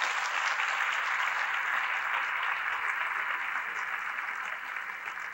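Audience applauding: steady clapping that tapers off gradually near the end.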